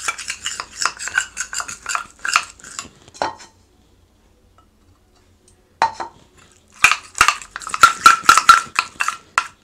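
Metal spoon scraping and clinking against a small stainless steel bowl, stirring flour and water into a thick paste. The stirring stops for about two seconds in the middle, then starts again faster, the bowl ringing with each stroke.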